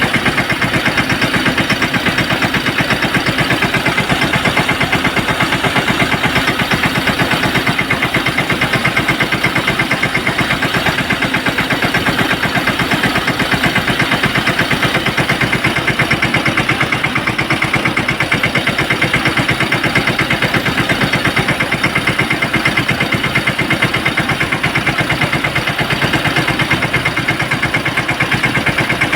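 Tractor engine running steadily with a fast, even beat, as used to power an orchard pesticide sprayer.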